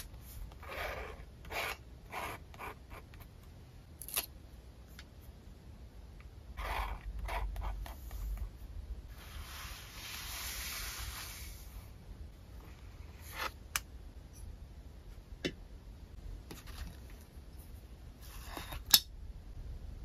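Paper crafting sounds: a few scissor snips and paper rustles, then a few seconds of steady rubbing as palms press paper flat on a journal page. Scattered light taps and clicks follow, with one sharp click near the end, the loudest sound.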